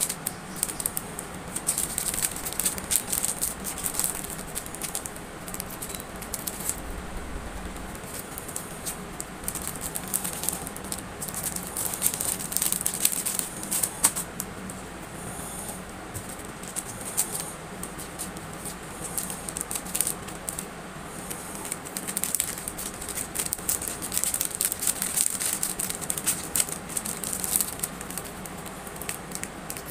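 Hands handling packing materials and small items: a continuous run of small clicks, rattles and rustles, over a faint steady low hum.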